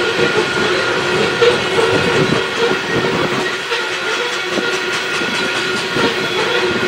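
Freight train of coal cars rolling past, wheels clattering and knocking over the rail joints. A steady ringing tone runs through the clatter.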